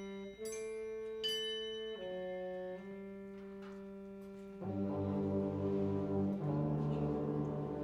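Concert band playing: soft held brass chords with two bright struck bell notes near the start, then about four and a half seconds in the low brass and full band come in louder with repeated driving chords.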